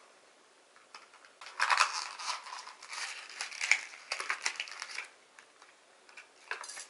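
Crackling and rustling of small product packaging being handled and opened by hand, in a dense stretch from about a second and a half in and again near the end.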